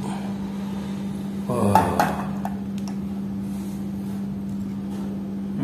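A few light knocks and clinks about two seconds in as a cooking pot and a plastic coffee strainer are set down on a tiled floor. A steady low hum runs underneath.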